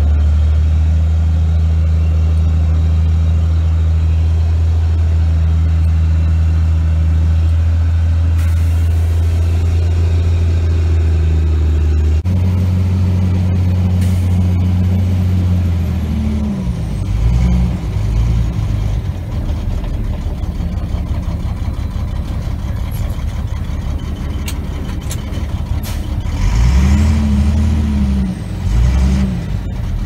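Heavy farm diesel engines heard from inside a tractor cab during forage harvesting, a loud steady drone. About twelve seconds in the sound cuts abruptly to another engine drone, whose pitch rises and falls a few times as the engine speeds up and slows.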